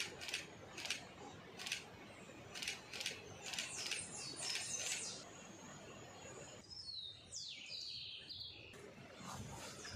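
Small birds chirping: a run of short, sharp high chirps through the first half, then a few quick descending whistled notes a little after the middle, over a faint background hush.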